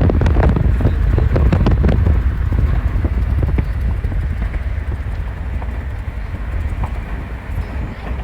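Car on the move: steady low road rumble with wind buffeting the microphone, and a quick run of knocks in the first couple of seconds.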